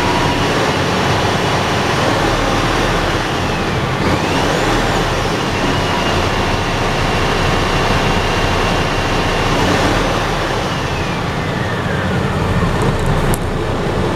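Scania P400 tipper truck's diesel engine heard from inside the cab while driving, pulling steadily at mid revs, with a thin high whine that holds and then slides down in pitch. The revs fall away near the end.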